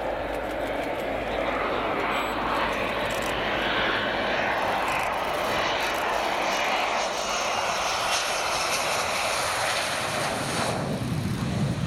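Panavia Tornado's twin RB199 turbofans on landing approach, gear down: a loud, steady jet noise. About a second before the end the higher part of the noise drops away, leaving a lower rumble.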